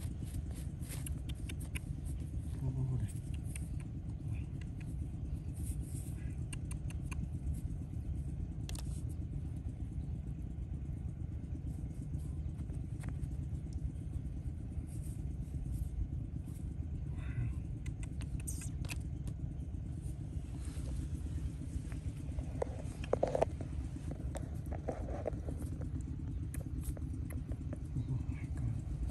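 A steady low engine rumble, with scattered clicks and knocks over it and a brief cluster of louder knocks about three-quarters of the way through.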